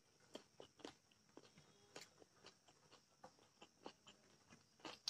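Faint eating sounds: soft chewing and small clicks as rice is eaten by hand from a steel plate, a few quiet ticks a second.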